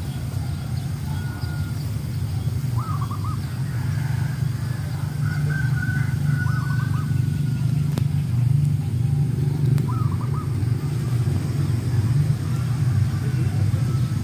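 A steady low rumble, growing a little louder partway through, with a bird's short call of four or five quick notes heard three times.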